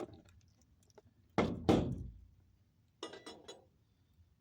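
Two heavy wooden thunks about a third of a second apart, then a shorter rattle of knocks a second later, from the wooden swarm-trap box and its comb being handled.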